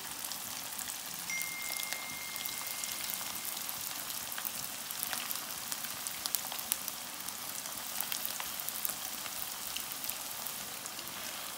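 Batter-coated cauliflower florets deep-frying in hot oil in a kadai: a steady sizzle with many small crackles and pops.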